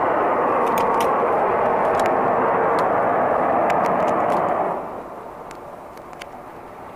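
A loud, steady rushing roar that drops away sharply about five seconds in, leaving a fainter background roar, with faint scattered clicks. Reports attributed it to an industrial plant across the river venting excess steam, though the recordist doubts this.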